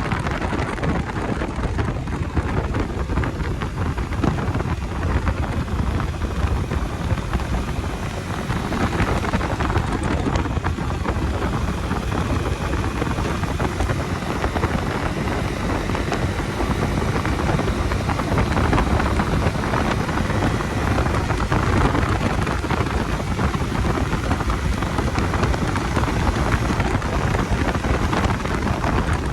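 Steady wind rush buffeting the microphone as a Bajaj Dominar 250 motorcycle rides along, with the bike's running and road noise underneath.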